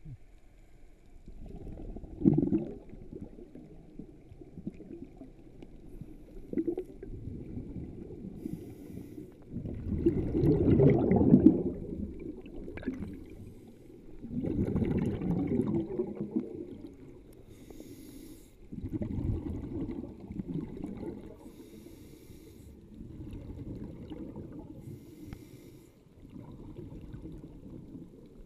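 Scuba diver breathing through a regulator underwater: exhaled bubbles rush out in low gurgling bursts every four or five seconds, the loudest about ten seconds in, with short hissing inhalations between them.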